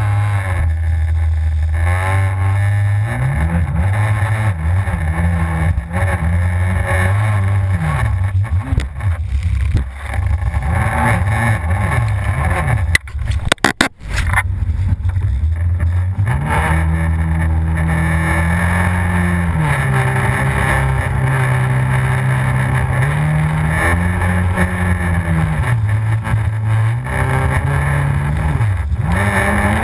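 Yamaha FZS personal watercraft's supercharged four-stroke engine running hard, its revs rising and falling again and again as it rides the waves. About 13 seconds in there is a brief break of sharp knocks and a dip in level before the engine note returns.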